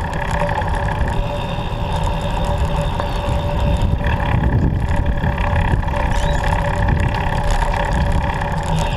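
Steady rumble of wind and road noise while riding a recumbent trike, with a few faint steady hums above it.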